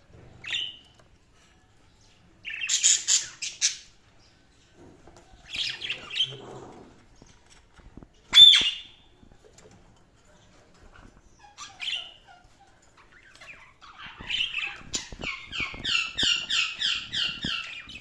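Budgerigars calling: short chirps and squawks every few seconds, with one loud sharp call about eight seconds in, then a fast run of evenly repeated chirps near the end.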